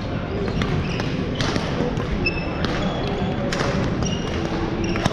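Badminton rally on a hardwood court: sharp racket hits on the shuttlecock and short squeaks of sneakers on the floor, over a murmur of voices in a large, echoing hall.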